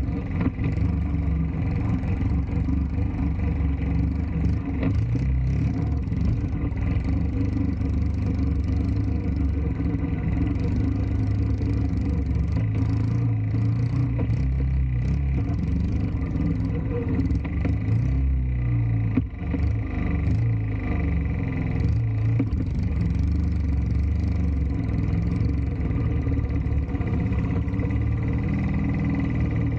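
A restored 1969 Honda Z50A Mini Trail's small single-cylinder four-stroke engine running, its note shifting up and down through the middle.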